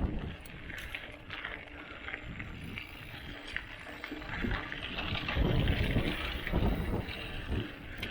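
Santa Cruz Highball hardtail mountain bike being ridden down a dirt trail: tyre noise and rattling from the bike, with wind buffeting the microphone, heaviest about five to seven seconds in.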